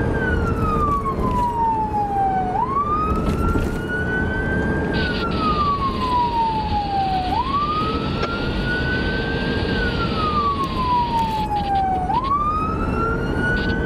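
Emergency-vehicle siren on wail, its pitch sliding up and down in slow sweeps about five seconds apart, heard from inside the responding vehicle over steady road noise.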